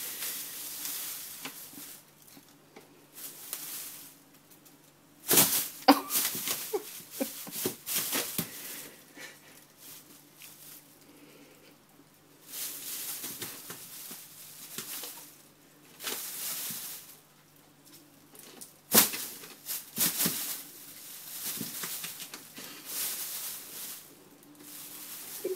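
Thin plastic bag crinkling and rustling in irregular bursts as a cat shifts and paws inside it, with sharper crackles about five seconds in and again about three-quarters of the way through.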